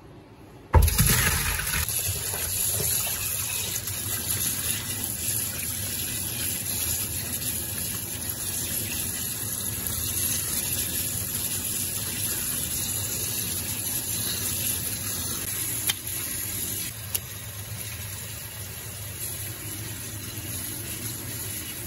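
Kitchen tap running onto diced raw beef in a stainless steel sink while the meat is rinsed by hand; the water starts suddenly a little under a second in and runs steadily.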